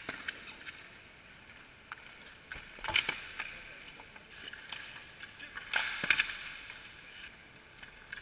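Inline roller hockey play near the goal: a few sharp clacks of sticks and puck, the loudest about three and six seconds in, over the steady rolling of skate wheels on the rink floor.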